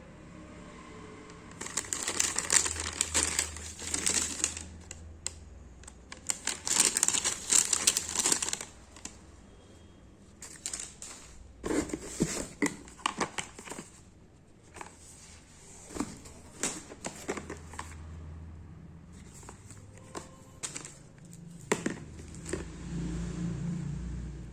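Packaging crinkling as it is handled and opened, in two long bursts in the first half, then scattered clicks and taps of handling the box and its contents.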